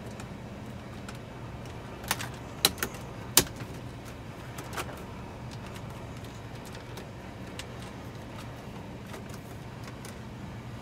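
Plastic dash trim bezel around a GM truck's radio being pressed into place: a few sharp clicks of its clips snapping in, about two to three and a half seconds in, with one more a little later, over a steady low hum.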